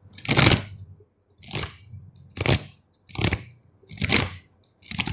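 Tarot cards being shuffled by hand: a swishing rustle of cards sliding against each other, repeated six times at about one a second.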